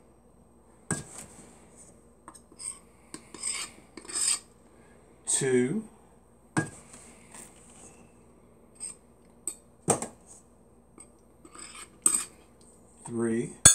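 Scattered metal clinks, knocks and light scrapes as a measuring cup scoops flour from a metal canister, is levelled off with a knife and is knocked against a stainless steel mixer bowl to empty it.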